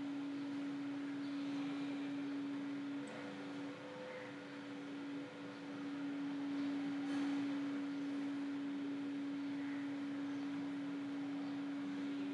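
A steady low hum, a single held tone over a faint hiss, wavering briefly about three and five seconds in.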